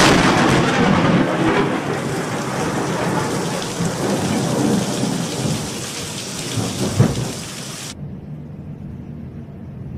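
Thunderstorm: a loud thunder crash at the start rolls on over heavy rain, with another sharp crack about seven seconds in. Near the end the sound drops to a muffled low rumble.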